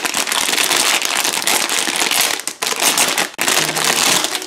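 Plastic packaging bag crinkling and crackling loudly as hands pull it open to get a squishy toy out.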